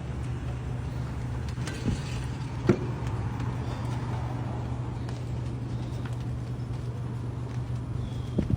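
Steady low rumble of a vehicle on the move, with a few sharp knocks, the loudest about three seconds in.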